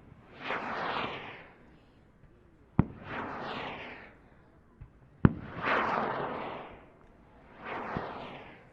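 A flight of 6-pound black powder skyrockets going up one after another, each a rushing whoosh lasting about a second. Two sharp bangs from the report headings come about three and five seconds in.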